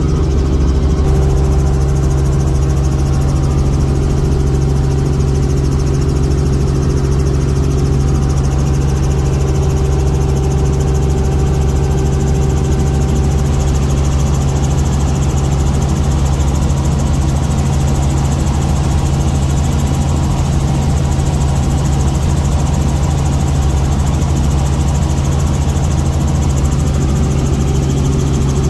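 Helicopter engine and rotor noise heard from inside the cabin in flight: a loud, steady, deep drone.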